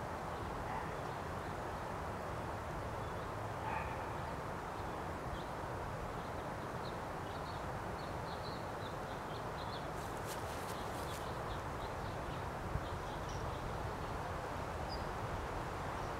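Steady outdoor background noise with faint, scattered bird chirps, and a short run of sharp clicks about ten seconds in.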